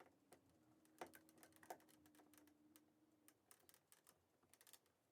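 Near silence with faint, scattered small clicks and taps from handling, and a faint low hum for about three seconds.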